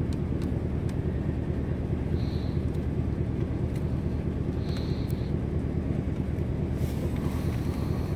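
Vehicle engine idling with a steady low rumble. Short faint high-pitched whistles come through about two seconds and five seconds in.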